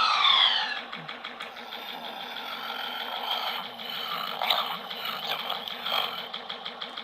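Podracer-style lightsaber sound font (Kyberphonic's Sebulba Speeder) playing through the saber's 28mm speaker: an engine-like hum that opens with a falling whine and swells briefly a few times.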